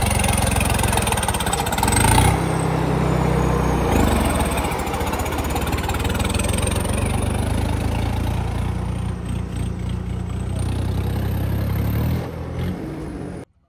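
Tractor diesel engine running while the tractor is driven, its pitch shifting a couple of times early on and dropping back after about twelve seconds, with a faint high whine rising and falling above it. The sound cuts off suddenly just before the end.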